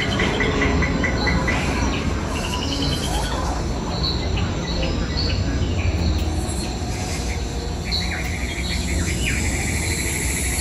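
Rapid trains of insect-like chirping mixed with bird calls over a steady low rumble. A long run of fast chirps starts about eight seconds in.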